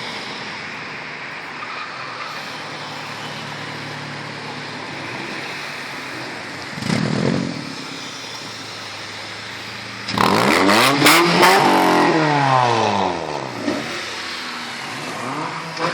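Modified cars with loud exhausts on a city street: steady traffic noise, a short blip of throttle about seven seconds in, then a loud rev about ten seconds in whose pitch climbs and then falls away over about three seconds as a car accelerates past.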